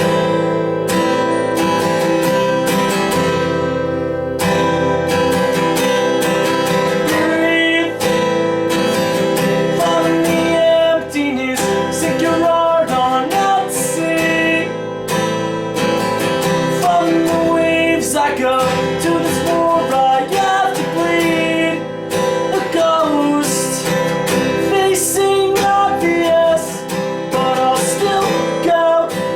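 Acoustic guitar playing a song's instrumental opening, strummed chords under a picked melody line.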